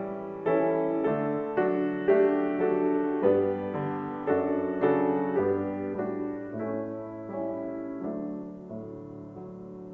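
Solo piano playing a slow, gentle postlude: chords struck roughly once a second, each ringing out and dying away, growing softer toward the end.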